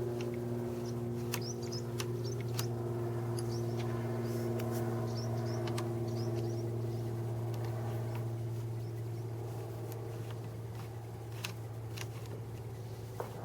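Light metallic clicks and brief high squeaks from a Phillips screwdriver backing out the small aluminium faceplate bolts on a Kawasaki 550 jet ski's handlebar switch housing. A steady low hum runs underneath the whole time.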